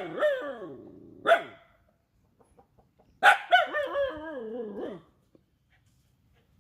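Rajapalayam dog barking three times. The first and last barks stretch into long cries that waver and fall in pitch, the last for nearly two seconds; a short bark comes between them.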